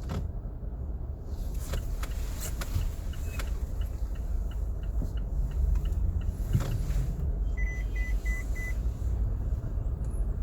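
Car driving with a window open: steady low road and engine rumble. In the middle comes a run of faint quick ticks, about three a second, and about eight seconds in four short beeps sound.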